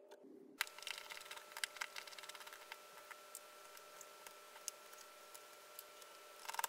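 Scattered light clicks and ticks of a precision screwdriver and gloved hands working the screws on a Lenovo Legion Y530 laptop's metal display hinge, over a faint steady hum with a thin high whine.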